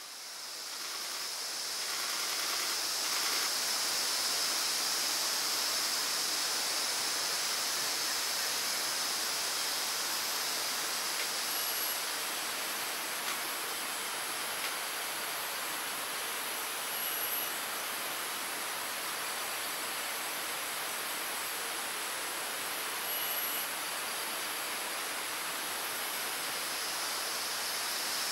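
Steady, even hiss of tropical forest background sound, strongest high up, with a few faint, brief high-pitched peeps scattered through it.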